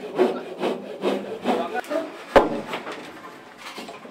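Wood rubbing and scraping on wood in rhythmic rasping strokes, about two a second, with one sharp knock a little past halfway.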